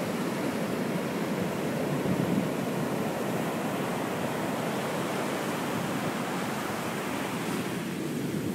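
Ocean surf breaking and washing up a sandy beach, a steady rushing noise with no single crash standing out.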